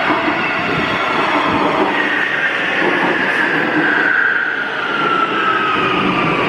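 Warsaw Metro train pulling into the platform: an electric motor whine falls steadily in pitch as the train slows, over the steady rumble of the wheels on the track.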